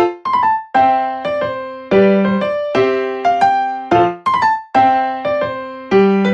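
Background piano music: a light melody of struck notes, each fading before the next.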